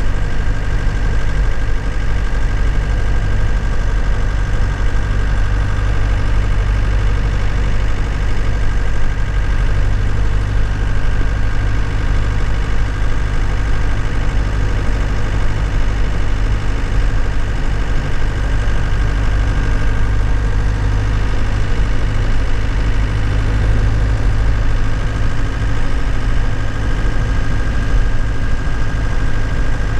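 2001 Nissan Cabstar light truck's diesel engine, heard from the cab, running at a steady, unchanging speed without revving or gear changes.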